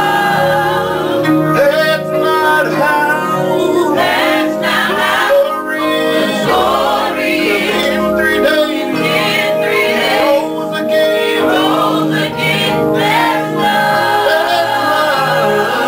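Gospel worship music: a choir and singers over sustained instrumental backing.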